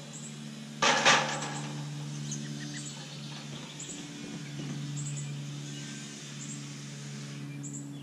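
A loud clatter about a second in as a long spirit level is set down on the aluminum plank, over a steady low hum with birds chirping.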